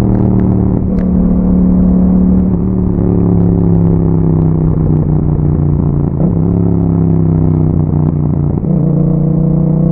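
Yamaha MT-07's parallel-twin engine running through an Akrapovic exhaust while riding. Its pitch sinks slowly and jumps back up a few times, about three, six and eight and a half seconds in.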